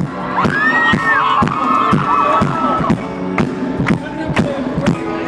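A steady dance beat with a drum hit about twice a second, under high-pitched screaming and cheering from a crowd that is loudest in the first half.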